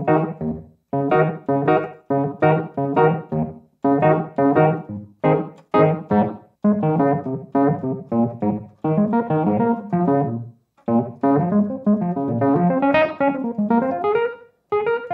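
Sampled Wurlitzer 200A electric piano played as a run of short, detached chords in staccato mode, with a delay effect added.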